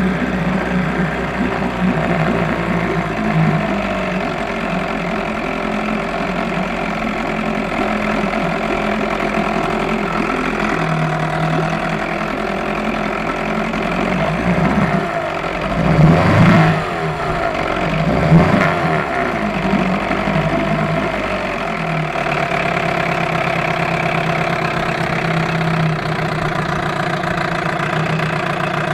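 Johnson 4 hp Deluxe two-stroke outboard motor running steadily in a test barrel. About halfway through it is revved up twice and drops back to its steady running.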